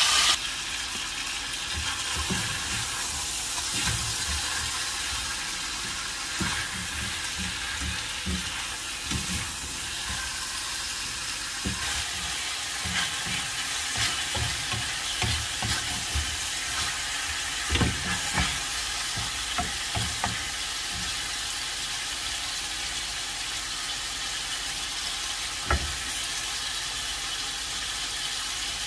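Chicken wings sizzling as they sauté in a ceramic-coated frying pan, while a spatula stirs them and knocks against the pan at irregular moments. There is a louder knock a little past halfway and another near the end.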